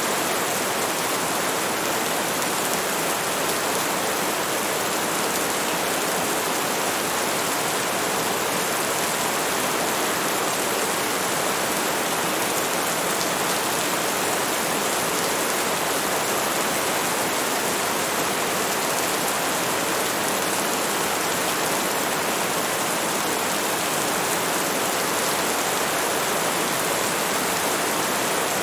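Steady heavy rain falling on a surface, a dense even hiss of countless drops that neither builds nor fades.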